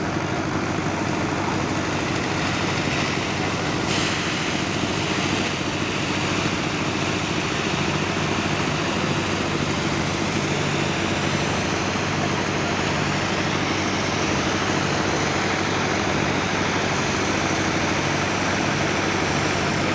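Diesel engine of an Eicher transit concrete mixer truck running steadily. A brief click sounds about four seconds in.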